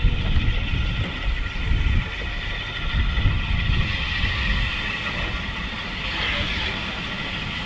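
A steam locomotive drawing a train slowly into the station: a low, uneven rumble with a steady hiss above it that grows louder in the second half.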